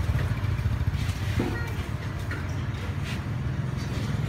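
Street ambience dominated by a steady low engine hum, with a few faint short sounds over it.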